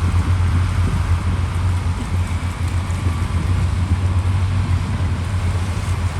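Heavy earthmoving machinery's diesel engine running steadily, a deep low drone with a noisy wash over it.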